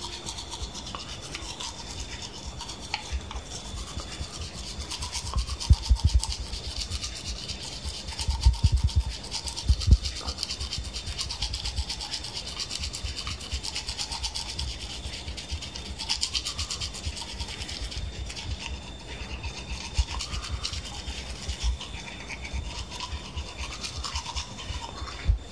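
Manual toothbrush scrubbing teeth with fast back-and-forth bristle strokes, going steadily throughout. A few low bumps come at about six seconds and again around nine to ten seconds in.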